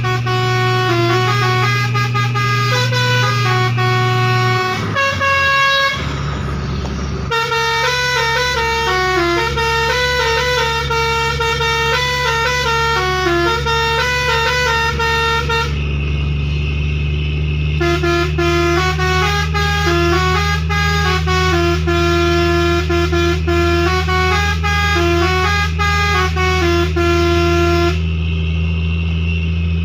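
Six-trumpet "basuri" musical air horn (telolet horn) on a truck playing a tune of stepping notes, over the steady low hum of the truck's engine. About five seconds in, the tune breaks off briefly for a rush of noise before the horn starts up again.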